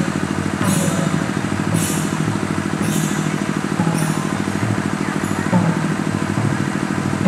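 Music for a Tharu Sakhiya dance: drums beating steadily, with bright cymbal clashes about once a second and voices over them.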